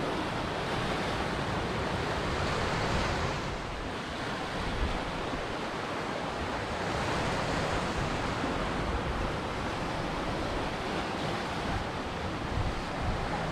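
Ocean surf: waves breaking and washing in as a steady rush of water, dipping briefly about four seconds in and swelling again.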